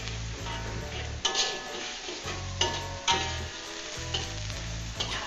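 A blended shallot, ginger and turmeric paste sizzling in a steel wok while a metal ladle stirs it, with sharp scrapes and clanks against the pan about a second in and twice more around the three-second mark. The paste is being fried down until dry.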